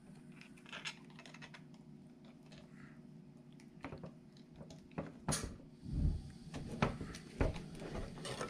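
Light clicks and rustles of plastic parts and wire as a servo lead is worked through a slot in a 1/18-scale RC rock crawler's chassis, then a run of louder knocks and thumps from about five seconds in as the truck is handled and turned over on a wooden table.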